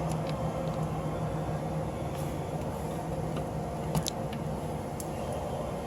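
A few light metallic clicks and taps from a small screwdriver working on the car's front suspension parts, the sharpest about four seconds in, over a steady low background hum.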